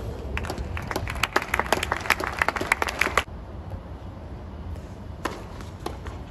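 Scattered applause from a small tennis crowd, dense claps that cut off suddenly about three seconds in, followed by a couple of sharp, single tennis ball impacts.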